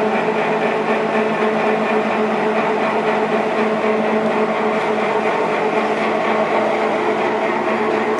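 South Bend 17" x 60" Turn-nado CL-170E engine lathe running under power, its geared headstock and spindle turning: a steady mechanical whir with a few steady tones in it.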